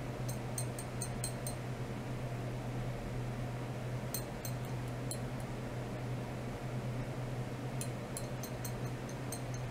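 Steady low electrical hum and room noise from an ultrasonic test bench, with three groups of quick, faint high-pitched ticks: one near the start, one about four seconds in and one near the end.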